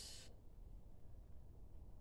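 Near silence: faint low room rumble.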